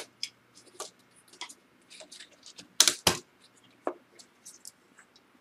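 Small sharp clicks and ticks of a screwdriver and fingers working the screws out of a Dell Vostro 1100's cooling fan and handling the loosened plastic fan, with two louder clicks about three seconds in.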